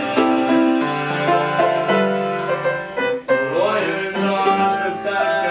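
Instrumental music with quickly repeated chords and held notes.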